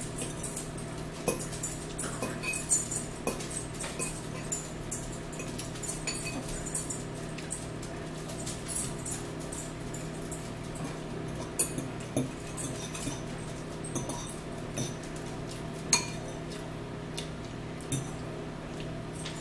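Metal forks clinking and scraping against bowls with eating noises while noodles are eaten: scattered sharp clicks, a few louder ones, over a steady low hum.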